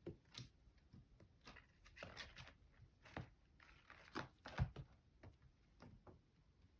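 A kitten playing with cut flowers: faint, irregular rustles, crinkles and light taps of stems and leaves, with a louder thump about four and a half seconds in.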